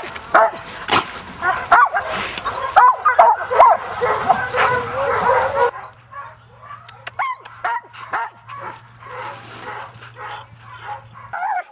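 Several sled dogs barking and yipping, many short calls overlapping. The sound is loud at first and drops abruptly a little over halfway through to sparser, quieter yips.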